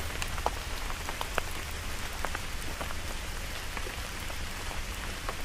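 Rain falling: a steady hiss with scattered plinks of single drops and a low rumble underneath.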